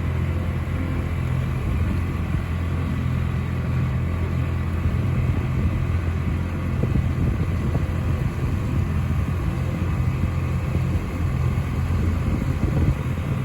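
A motorboat's engine running steadily while under way on the river: a low, even drone.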